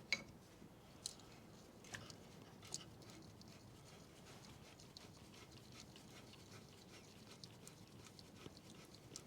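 Near silence with a few faint, sharp metallic clicks and taps from handling and fitting brake caliper slider pins, most of them in the first three seconds and one more near the end.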